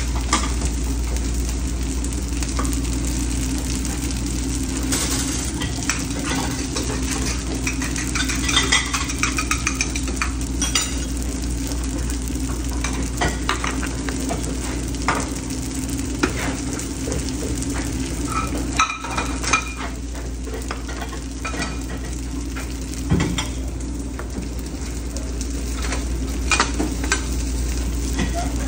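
Hash browns and eggs sizzling on a flat-top griddle and in small frying pans, with frequent short metal clinks and scrapes of pans and spatulas over a steady low hum.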